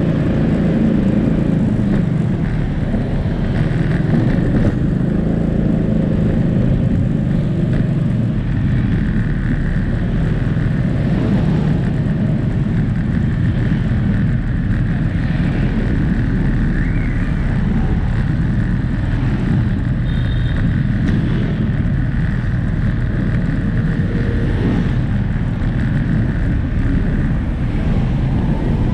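Motorbike riding through city traffic: a steady engine and road noise, with a faint higher whine running through the middle.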